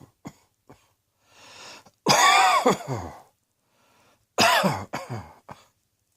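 A person coughing hard: a breath in, then a loud voiced cough about two seconds in and another about four and a half seconds in, the second trailing off into a few short coughs.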